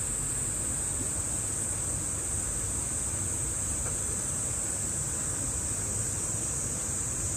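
Steady, unbroken high-pitched drone of cicadas in summer trees, over a low rumble.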